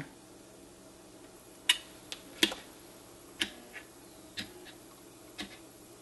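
NuTone 8-note door chime base running its eight-note sequence with no tubes mounted: the solenoid plungers strike in turn as sharp, dry clicks, about one a second and sometimes in quick pairs. Under them is a faint steady hum from the Telechron motor driving the sequence.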